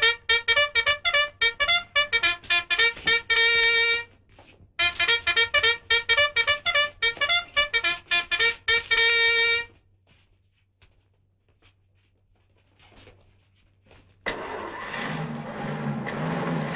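A bugle call sounded in two phrases of quick, repeated notes, about five a second, each phrase ending on a held note. After a short lull with faint ticks, a motor vehicle's engine starts running about fourteen seconds in.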